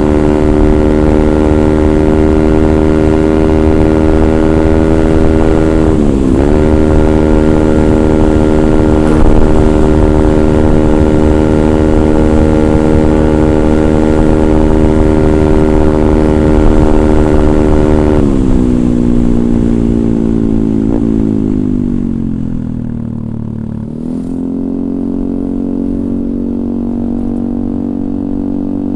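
Yamaha Aerox 155 scooter's single-cylinder engine running through a DSM Cobra racing exhaust, held at steady high revs with a brief dip about six seconds in. The revs then fall away over several seconds and settle at a lower steady speed near the end.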